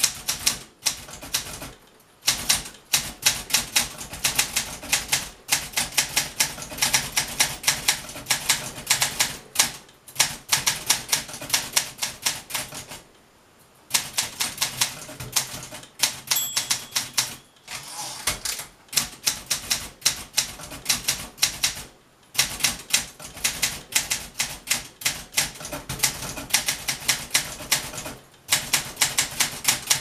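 1967 Olympia SM9 manual typewriter being typed on: quick runs of sharp key strikes, several a second, as the typebars hit the platen, broken now and then by short pauses. A brief high ring comes once, about halfway through.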